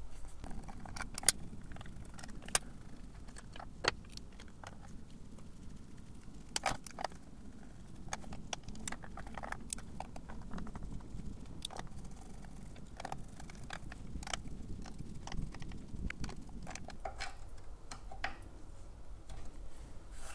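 Irregular small clicks and taps of a hex key turning screws in the 3D-printed plastic suspension sliders of an electric unicycle.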